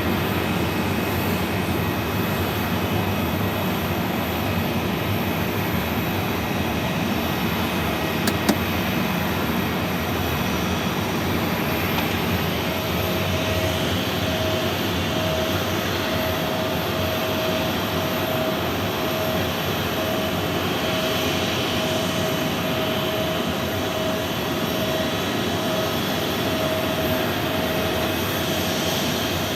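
Airliner jet engines running steadily as planes taxi on the apron. A sharp click comes about eight seconds in, and a pulsing mid-pitched tone joins about halfway through.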